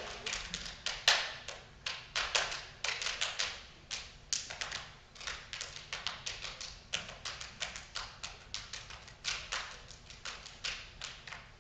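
Group body percussion: hands slapping and patting chests and bodies in quick rhythmic patterns, several sharp slaps a second, growing sparser and quieter in the second half.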